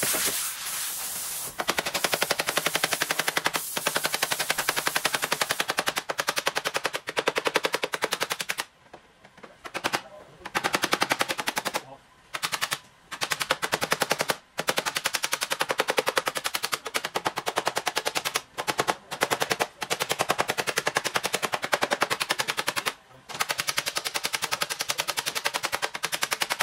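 Rapid, evenly paced tapping on a car's front fender panel with a paintless-dent-repair tap-down tool, knocking down a dent in runs of many taps broken by short pauses. A heat gun hisses at the start.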